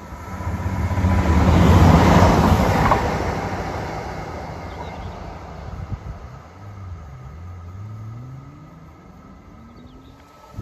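Arriva regional diesel train passing close by, loudest about two seconds in, its engine and wheel rumble then fading away. From about seven seconds in, another diesel train's engine note climbs steadily in pitch as it approaches.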